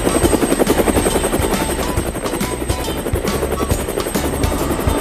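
Cartoon helicopter sound effect: the rotor's fast, even chop as the helicopter lifts off and flies.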